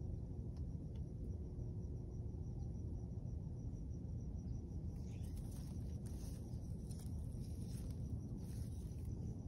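Outdoor ambience with a steady low rumble and an insect chirping in a fast, even pulse. From about halfway, the leaves and fruit of a jujube branch rustle as a hand handles them.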